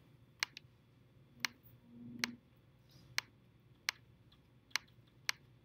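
Faint, sharp single clicks, about nine of them at irregular spacing, from a computer being clicked while browsing.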